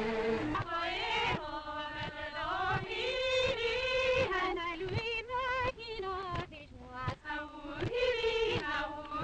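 Women singing a waulking song together in phrases, with a regular beat of thumps as the cloth is struck on the wooden board in time with the song.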